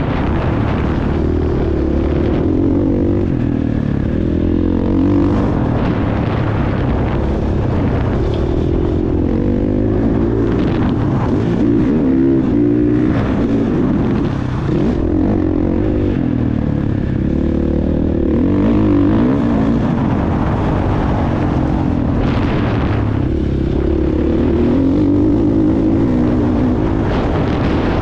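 Motocross dirt bike engine being ridden hard, its pitch climbing and dropping again and again with the throttle.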